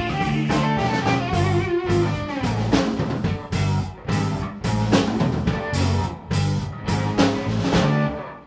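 Live rock band with electric bass, electric guitar and drum kit playing together. From about halfway through it plays a run of accented full-band hits with cymbal strikes, then stops just before the end.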